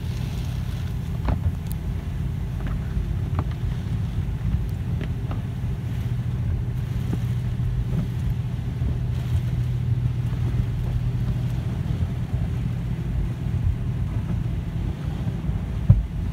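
Hanna Sherman car wash tunnel's foam wraps and cloth curtains scrubbing and slapping over a car's body and windshield, heard from inside the cabin as a steady low rumble with scattered light knocks. A low hum grows stronger in the middle.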